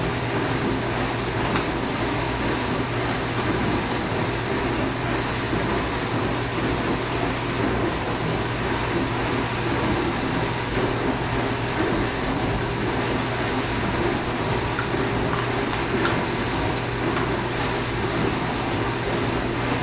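Dishwasher running: a steady low hum under a continuous churning wash noise, with a few faint clicks now and then.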